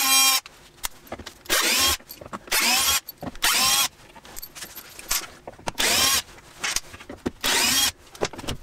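Cordless drill-driver backing out screws: about six short runs of the motor, each sweeping up in pitch as it spins up and dropping as it stops, with small clicks and handling noises between them.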